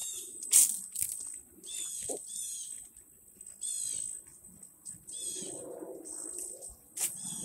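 Birds calling in short, repeated chirps about once a second, over a steady high hiss. A couple of sharp clicks stand out, one near the start and one near the end.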